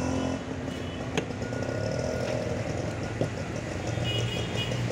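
Street traffic: a vehicle engine runs steadily under general road noise, with a few sharp knocks scattered through it.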